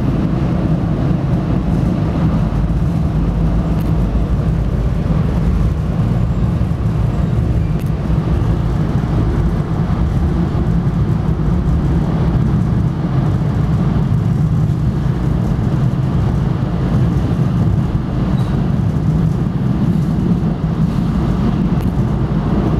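MBTA commuter rail train running steadily, heard from inside a passenger coach: an even low-pitched noise of the train in motion.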